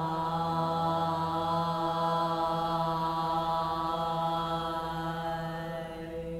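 A woman chanting one long, steady-pitched vocal tone into a handheld microphone, the sound she gives for the throat chakra in a chakra toning meditation. It eases off slightly near the end.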